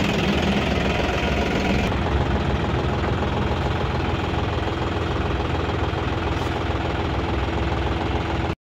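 John Deere 5310 tractor's three-cylinder diesel engine idling steadily at close range. It cuts off abruptly near the end.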